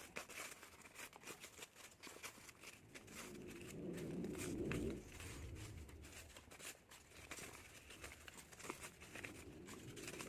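Faint rustling and small clicks of paper banknotes being handled and counted. A low hum swells about three seconds in and fades at about five seconds.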